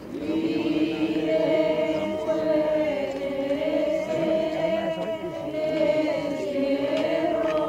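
A group of voices singing a slow religious chant in unison, with long held notes.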